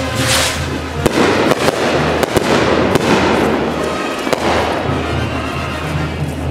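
Fireworks going off: a string of sharp bangs and crackling, most of them between about one and four and a half seconds in. Music with a steady low bass plays underneath.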